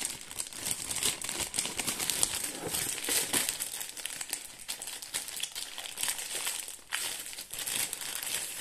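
Packaging crinkling and rustling under the hands as a keyboard box is being unwrapped, with dense, irregular crackles throughout.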